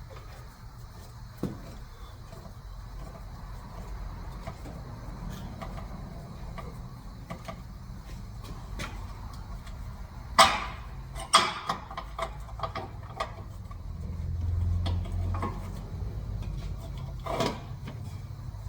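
Several sharp knocks and clicks, the loudest about ten seconds in and a cluster just after, over a low steady rumble.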